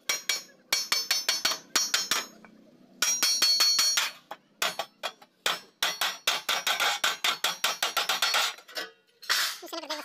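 Wooden mallet beating a galvanized steel sheet against a steel angle edge to fold a duct flange: sharp metallic strikes that ring, coming in quick runs of about five or six a second with short pauses between runs. A short rattle of sheet metal near the end.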